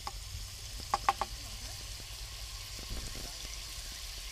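Pieces of chicken fillet sizzling steadily in a hot wok, with a few sharp clicks about a second in.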